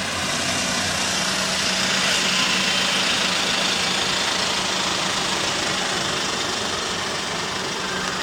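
An engine-driven vehicle passing, with a steady low engine hum under a rush of noise that grows to its loudest about two to three seconds in and then fades slowly.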